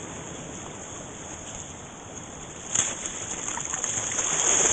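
Shallow seawater sloshing around the camera at water level, with a splash about three seconds in. Then the rush of a small breaking wave grows louder near the end, over a steady high hiss.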